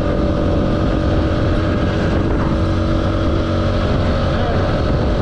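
Small-displacement motorcycle engine running steadily under way, its note holding even, over a steady rush of noise.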